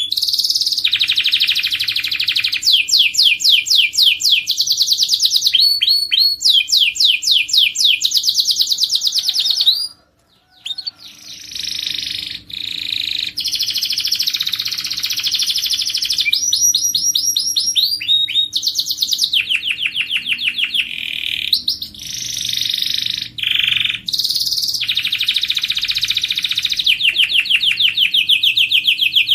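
A domestic canary singing a long song of fast trills and rolled phrases, each a rapid run of repeated notes, switching from one phrase to the next every second or two. There is a brief pause about ten seconds in.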